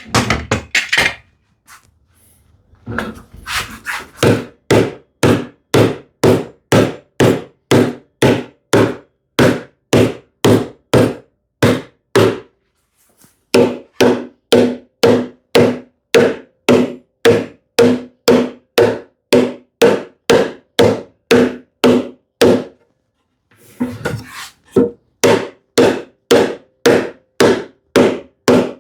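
Steady hammer blows on wood, about two a second, each with a short woody ring, pausing briefly twice.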